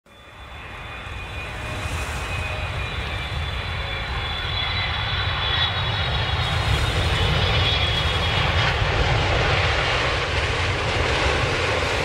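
Airliner on its landing approach passing low: a steady engine rumble with a high whine that slowly drops in pitch. It grows louder over the first several seconds, then eases off near the end.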